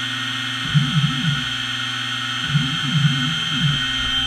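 Small CNC mill running: the spindle gives a steady high whine and hum, and twice the axis stepper motors sweep up and down in pitch as the machine makes a quick series of moves.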